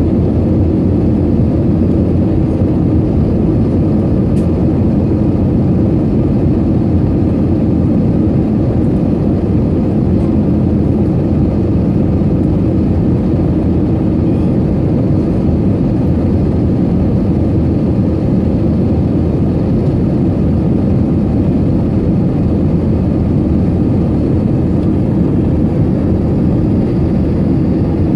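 Steady, unchanging cabin noise of an Airbus A320neo in flight, the engine and airflow heard from a window seat over the wing as a deep, even rumble.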